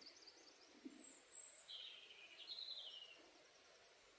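Faint songbird calls: a short high trill right at the start, then a longer warbling phrase through the middle.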